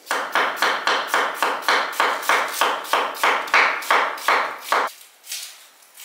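Knife chopping vegetables on a cutting board, a fast even run of about three or four strokes a second that stops about a second before the end.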